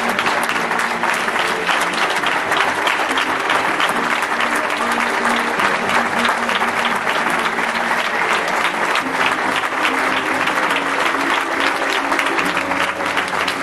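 Audience applauding steadily throughout, with music playing underneath.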